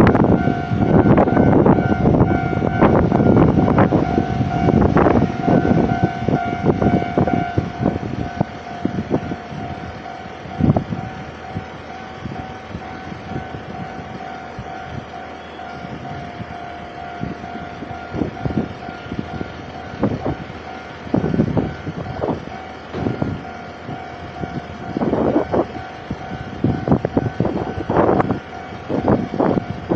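Level crossing alarm sounding a steady electronic tone as a train passes over the crossing, its wheels clattering over the rail joints. The train noise dies down after about eight seconds, and more clattering comes back near the end.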